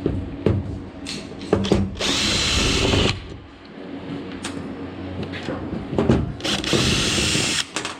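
Power drill driver running in two bursts of about a second each, backing out the screws that hold the boat's rails and hardware. Sharp clicks and knocks come between the bursts.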